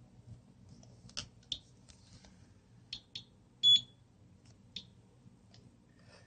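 Geiger counter clicking sparsely and irregularly, about nine clicks in six seconds, with one louder click carrying a short high beep about three and a half seconds in. This slow count rate is what a furnace filter gives once its reading has fallen from near 1,000 counts per minute to only a little above background.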